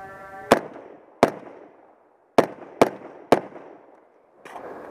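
Five shots from an AR-15 chambered in .300 Blackout firing 150-grain rounds: a pair about three-quarters of a second apart, then after a pause of about a second, three more in quicker succession, about half a second apart.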